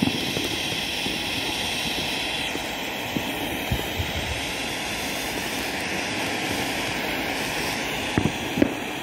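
Firework fountain spraying sparks with a steady jet-like hiss, with a few sharp cracks, two of them near the end.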